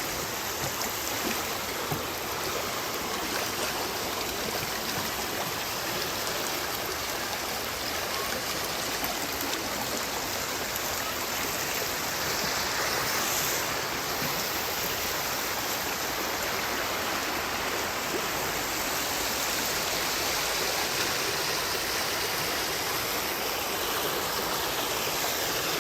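Forest stream flowing over rocks: a steady rush of water.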